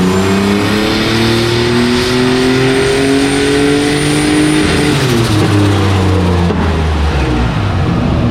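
Turbocharged Ecotec V6 engine under load, likely on a dyno: the revs climb steadily for about five seconds, then the throttle is lifted and they fall back quickly to a lower steady speed.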